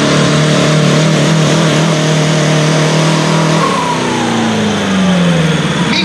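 Pulling tractor's engine running at steady high revs, then the revs fall away smoothly over about two seconds, starting a little past halfway.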